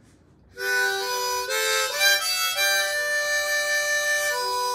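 Harmonica played by mouth with cupped hands: a slow run of held chords that starts about half a second in and shifts to a new chord every half second to a second.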